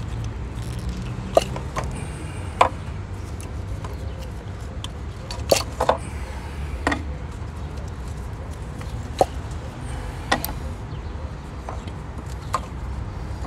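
Scattered sharp clicks and knocks, about nine in all, as the plastic ignition coils are pulled out of a 2017 Chevy Cruze engine's cylinder head and handled. A steady low rumble runs underneath.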